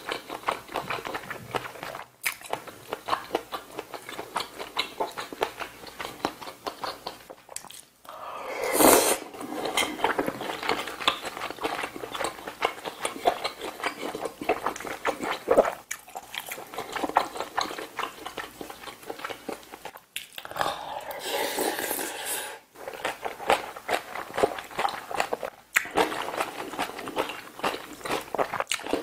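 Close-miked eating sounds of braised kimchi stew with pork and rice: continuous wet chewing and biting with many small mouth clicks, and a louder burst about nine seconds in and again around twenty-one seconds.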